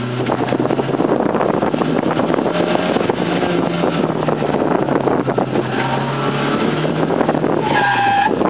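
Fiat X1/9's mid-mounted four-cylinder engine running hard under load, heard from inside the open-top cabin with wind rushing past. Near the end the tyres squeal briefly.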